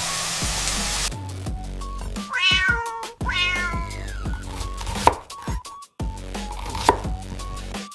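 A cat meows twice, the second meow longer, over background music with a steady low beat. A hissing noise stops about a second in, and two sharp knocks come later.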